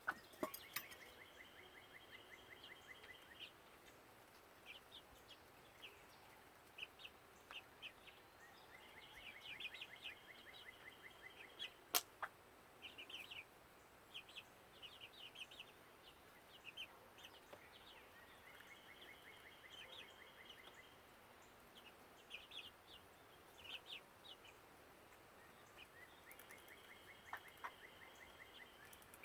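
Faint bird calls: a trill about three seconds long, repeated roughly every eight seconds, with scattered short chirps in between. One sharp click about twelve seconds in.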